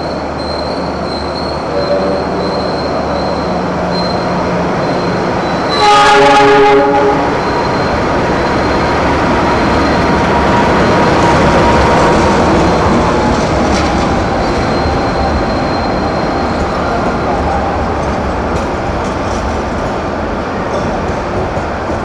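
A diesel-electric locomotive sounds its horn in one blast of about a second, some six seconds in, as the train runs alongside the platform. Then comes the steady rumble and rattle of the locomotive and coaches rolling past, with a thin squeal from the wheels around the middle.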